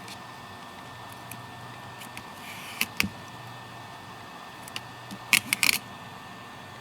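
Small sharp clicks and taps from handling tablet parts and tools during a screen repair: two clicks about three seconds in, then a quick run of four or five near the end, over a steady faint electrical hum.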